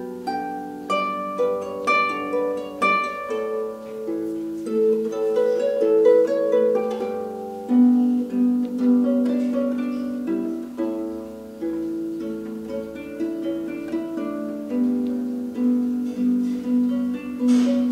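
Small wooden harp played by hand: a melody of plucked notes over lower notes and chords, each string left to ring on.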